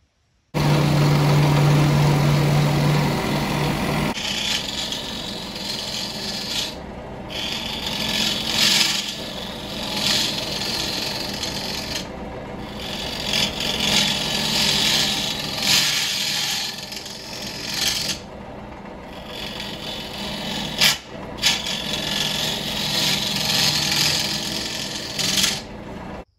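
A gouge cutting into a spinning blank of cured epoxy resin and cherry burl on a wood lathe: a continuous scraping, hissing cut that breaks off briefly several times as the tool lifts. A steady hum runs under the first few seconds.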